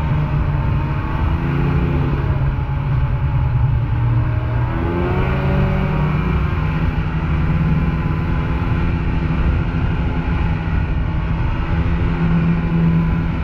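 Snowmobile engine running under way. Its pitch drops as it eases off about a second and a half in, then climbs again as it speeds up about five seconds in and holds steady.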